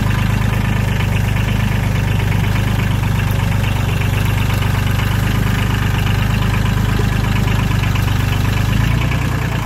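Compact tractor engine running steadily, with a slight change in its low tone near the end.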